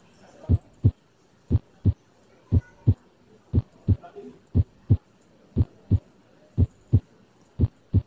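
A child's normal heart sounds heard through a stethoscope: a steady lub-dub, the first and second heart sounds, about one pair of low thumps a second with no murmur between them.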